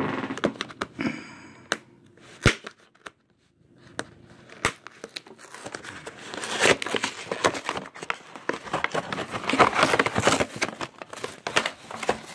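Stiff plastic blister packaging on a toy's cardboard card crinkling and crackling as it is handled and opened. Two sharp clicks come about two and a half and four and a half seconds in, and the crinkling is densest from about six to eleven seconds.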